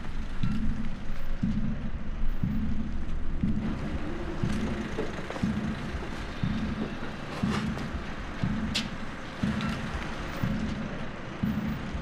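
Background film score: a low note pulsing about once a second, with a few sharp clicks over it.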